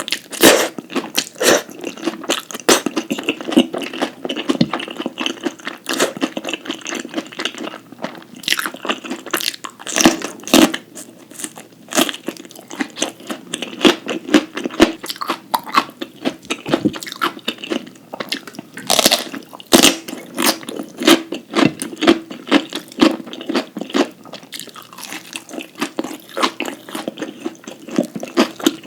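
A person chewing and biting food close to the microphone, with frequent crisp crunches several times a second.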